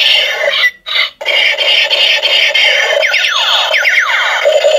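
Battery-powered toy sniper rifle's electronic sound effect: a loud, harsh buzzing tone that cuts out twice just under a second in. Then comes a quick run of falling pitch sweeps about three seconds in.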